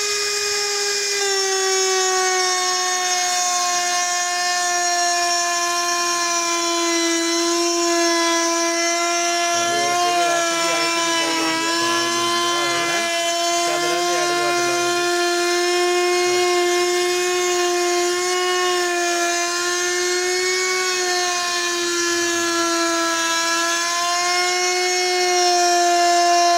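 DCK compact trim router running at high speed, cutting a groove into a laminate-faced door panel: a steady high whine whose pitch drops slightly about two seconds in, then holds steady.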